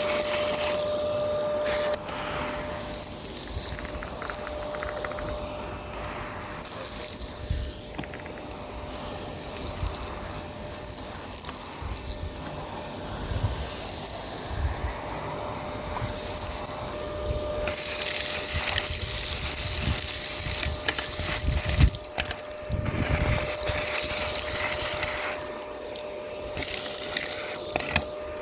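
Miele Complete C2 Tango EcoLine canister vacuum running with a steady motor tone while it sucks up street debris, which crackles and clicks through the nozzle and hose. The suction hiss grows louder about two seconds in and again past the halfway point.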